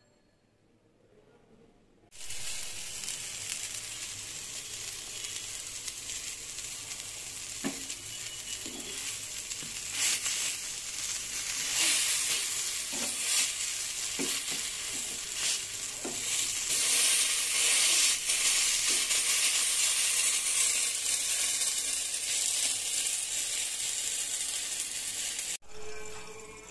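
Halved eggplant slices frying in mustard oil in a pan, a steady sizzle that starts abruptly about two seconds in, with a spatula knocking and scraping as it turns them several times. The sizzle cuts off abruptly shortly before the end.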